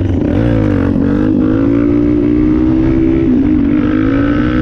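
Dirt bike engine under hard throttle as the front wheel lifts into a wheelie. The revs climb, drop briefly at a gear change just over three seconds in, then hold steady.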